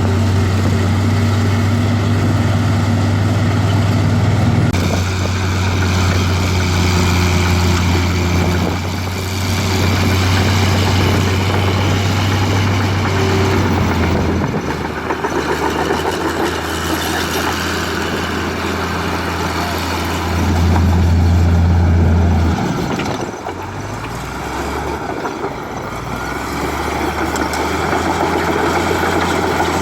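Heavy diesel engines of a bulldozer and dump trucks running steadily, the engine note changing several times as the machines work. About two-thirds through, one engine revs louder for a couple of seconds, then drops back.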